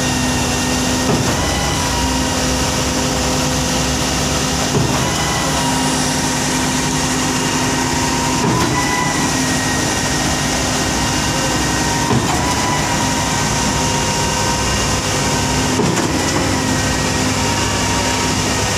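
Heavy construction machinery running steadily at a concrete pour: a loud, continuous engine hum with a steady pitch. It shifts briefly about every three and a half seconds in a regular cycle.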